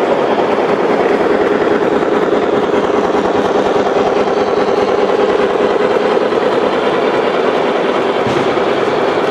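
Gauge 1 model train running on the track: a steady, dense rattle of wheels over rails with a constant hum under it.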